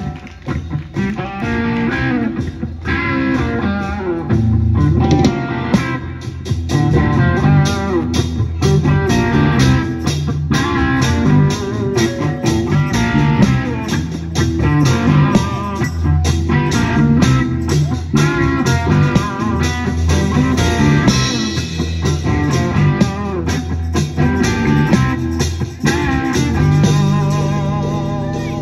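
Live band playing electric guitar, bass guitar, keyboard and drum kit, with the drums keeping a steady beat.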